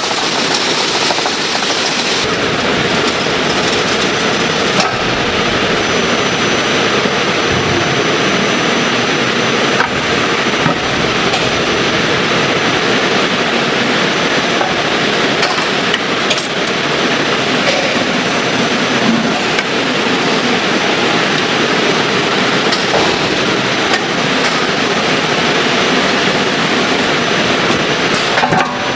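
Automated food-factory machinery running: a steady, dense mechanical clatter with a few faint knocks.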